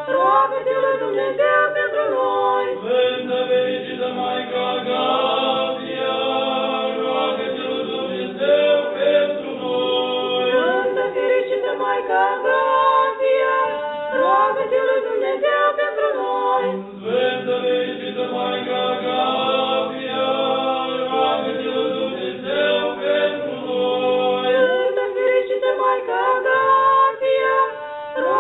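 Several voices singing Orthodox liturgical chant without instruments, in continuous phrases with a brief break about two-thirds of the way through.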